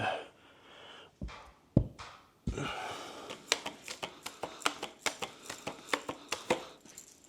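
Plaster scraper knocking and scraping across a wall in short, quick strokes, taking off excess cornice cement before it dries. A few separate knocks come first, then a fast run of strokes, several a second.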